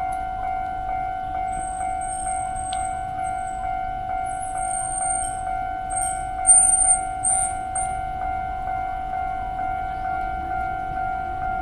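Japanese level-crossing warning bell ringing, an electronic ding repeating evenly about twice a second. A thin high-pitched squeal comes and goes over it, loudest about six and a half seconds in.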